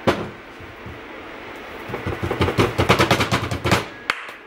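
A sharp knock, then nearly two seconds of quick slaps from hands working raw burger patties on a wooden cutting board.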